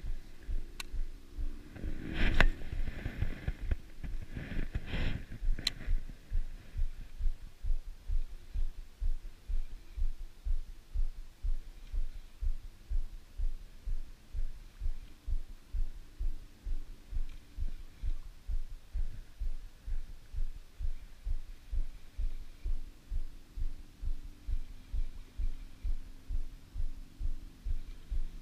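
Fishing reel being cranked to retrieve a topwater lure: a low, even thumping about twice a second. A few sharper knocks and rustles come in the first six seconds, around the cast.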